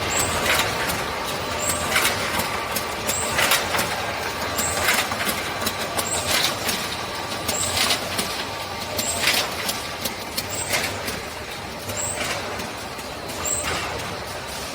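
Can-making production line machinery running steadily, with a sharp air-release hiss repeating about every one and a half seconds as the machine cycles.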